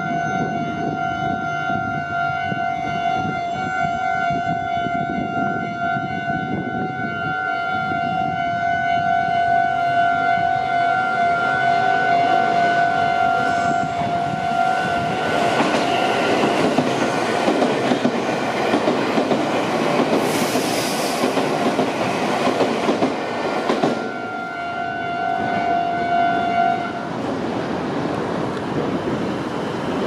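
Japanese level-crossing warning bell ringing in a steady, repeating electronic tone while a Meitetsu Nagoya Main Line electric train passes over the crossing. The train's wheels on the rails swell into a loud rush of noise about halfway through and fade about ten seconds later, and the bell stops shortly after the train has gone.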